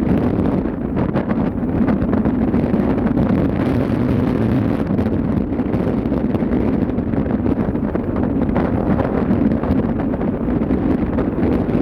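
Wind buffeting the microphone over a steady low drone of a ship under way.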